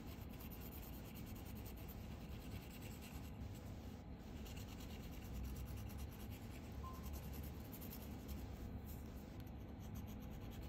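Faint, steady scratching of a tiny watch-movement sleeve being rubbed back and forth on fine abrasive paper under a pointed wooden stick, grinding it down to its final height.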